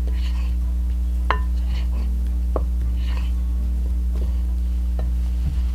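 Wooden spoon stirring dry flour and spices in a glass mixing bowl: soft scraping, with about four knocks of the spoon against the glass, each ringing briefly. A steady low hum runs underneath.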